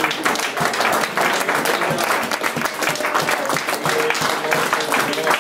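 A congregation clapping and applauding, a dense run of many hands, with music playing underneath.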